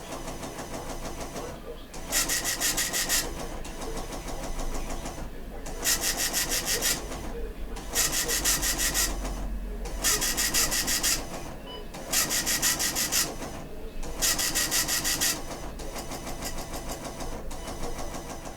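Radio receiver hissing with static, broken by a harsh buzzing burst about every two seconds, each lasting about a second.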